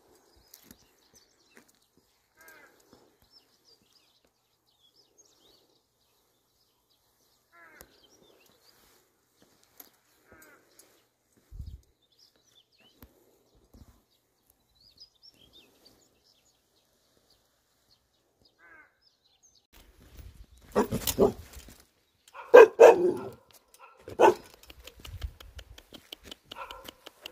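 Faint scattered bird chirps, then a dog barking several times near the end.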